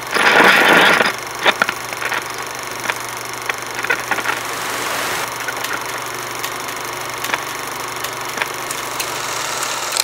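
Old-film crackle sound effect: a steady hiss over a low hum, sprinkled with sharp clicks and pops. A louder burst of crackle comes in the first second.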